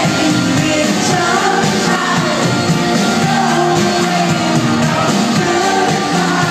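Live indie rock band playing with several voices singing, the full mix heard from the crowd of a club concert.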